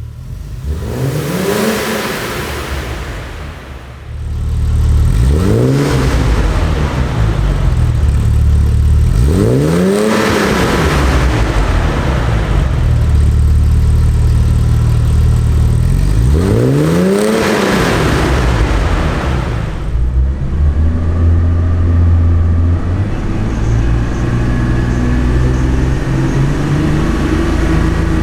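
1982 BMW 320 (E21) engine revved four times, each rev rising and falling back over about two seconds. It runs steadily between the revs and holds a steady idle for the last several seconds.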